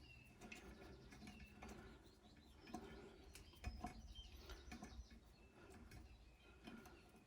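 Near silence: faint outdoor ambience with a few short, faint bird chirps and a couple of soft knocks, like a hand tool on metal.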